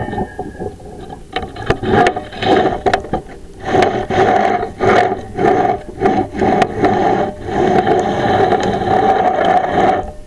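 Chimney inspection camera head scraping and rattling against the inside of a clay flue liner as it is pushed up the flue, with many sharp knocks and a squealing scrape. The scraping grows denser about four seconds in and stops just before the end.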